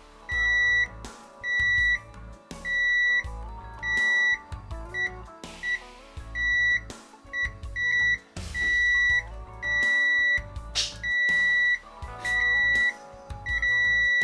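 Richmeter 777 multimeter's continuity beeper sounding in a string of about a dozen high beeps at irregular intervals, some brief and some about half a second long, each time the test probes close a circuit through the part. Background music plays underneath.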